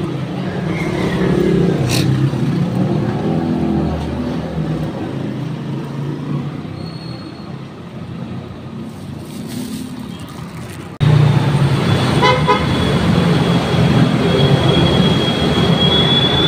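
Street traffic: motor vehicles pass with a low engine rumble, and a horn toots. About 11 seconds in, the sound cuts abruptly to louder traffic with a steady high-pitched squeal.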